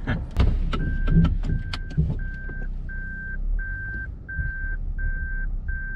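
A Toyota Crown's reverse-gear warning beeper sounds inside the cabin: a steady run of evenly spaced beeps at one pitch, about one and a half a second, starting about a second in. The car has just been shifted into reverse to park, and a few sharp clicks and knocks come in the first two seconds over the low hum of the car.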